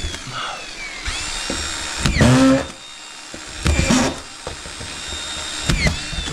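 Power screw gun (drywall drill) whirring in three short bursts, its motor whine rising as it starts and falling as it stops each time. The owner calls the gun broken.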